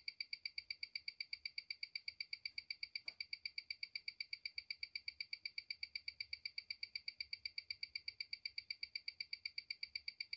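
Mechanical watch ticking amplified through a timegrapher's speaker: an even, fast tick about eight times a second (28,800 beats per hour) with no beat error. It comes from the stainless-steel MMI Cuttlechron's automatic movement, which the owner believes is a Miyota 9015, running well at about 300° amplitude.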